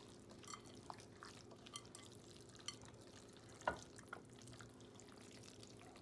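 Faint, scattered soft wet clicks and taps of hands working a moist cornbread dressing mixture, with one sharper tap about three and a half seconds in.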